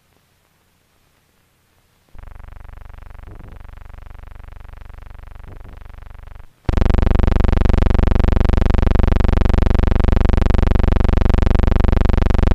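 A steady electric buzz on the old film's soundtrack, one unchanging tone with many overtones, running over blank film. It starts about two seconds in, cuts out briefly past the halfway point, then comes back much louder.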